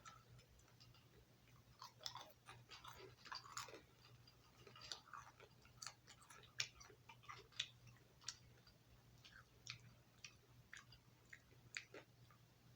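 Cotton-candy-flavoured gourmet popcorn being chewed, a faint scatter of short crisp crunches every half second or so, over a steady low hum.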